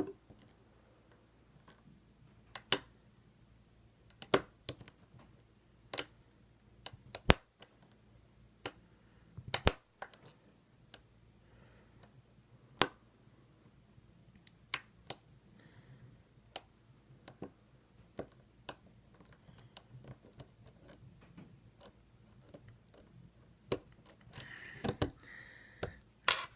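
Lock picking in an ASSA 700 pin-tumbler lock: irregular sharp metallic clicks and ticks as the pick works the pins under tension, spaced a second or so apart with a few quick clusters.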